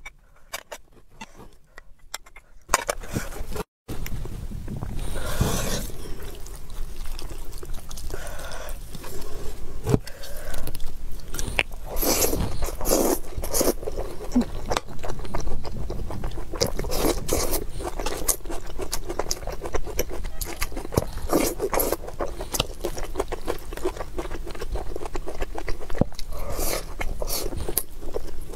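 Close-miked eating sounds: chewing and biting with wet mouth clicks, and a spoon scraping a bowl. They are faint for the first couple of seconds, then dense and fairly loud.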